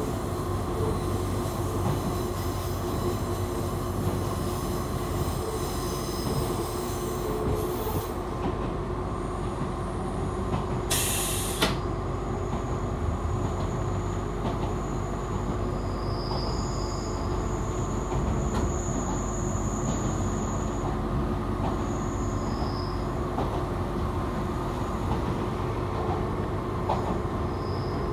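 Echizen Railway local electric train running, heard from inside the car: a steady rumble of wheels on rail with a constant hum. A brief hiss comes about eleven seconds in, and a few faint high wheel squeals follow in the second half.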